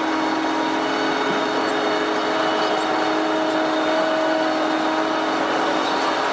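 Farm harvesting machinery running steadily: a constant engine and mechanical hum with no change in speed.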